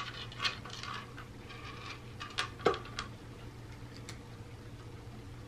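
A cat pawing and nosing at a plastic food-tree feeder: dry treats and kibble rattle and click against the plastic tiers, with a fuller knock about two and a half seconds in. The clicking stops about three seconds in.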